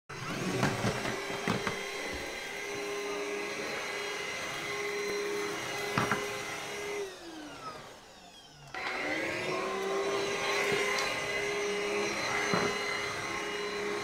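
Moolan cordless stick vacuum cleaner running with a steady whine and rushing air. There are a few knocks as the floor head moves over the rug. About seven seconds in the motor cuts out and winds down with a falling pitch, then about nine seconds in it starts again and spins back up to a steady whine.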